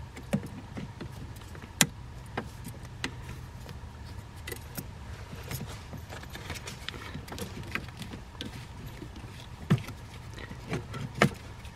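Scattered sharp clicks and small metallic clinks of hand tools working a hose clamp and coolant hose at a water pump, over a steady low hum.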